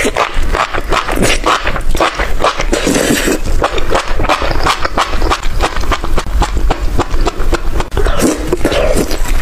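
Close-miked eating sounds of a mukbang: a rapid run of wet clicks, smacks and chewing noises.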